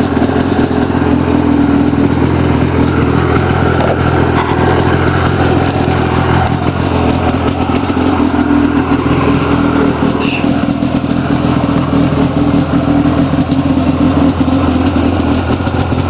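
Ski-Doo Blizzard 5500 snowmobile's two-stroke engine running steadily at a fairly even speed, without clear revving.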